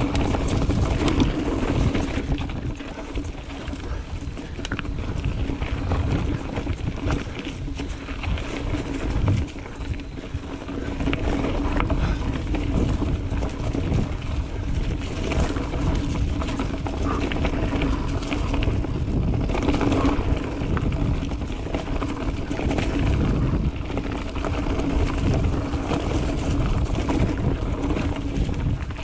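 Mountain bike riding a dirt trail: wind buffeting the microphone, tyre noise and the bike rattling over bumps, with a steady low hum throughout.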